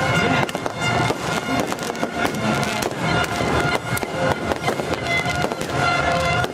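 Fireworks bursting and crackling in quick succession, over music with steady held tones.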